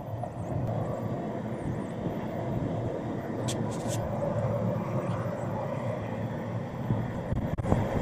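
Golf cart rolling along a paved path: a steady rumble of the ride.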